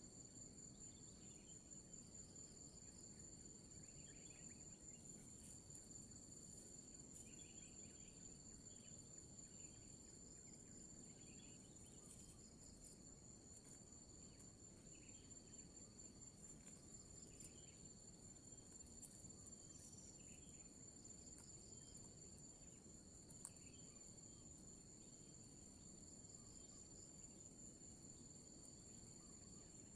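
Faint, steady high-pitched insect trilling, with soft short chirps recurring every second or two underneath.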